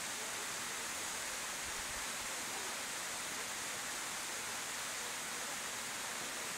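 Steady, even hiss with no distinct events, brightest in the high treble.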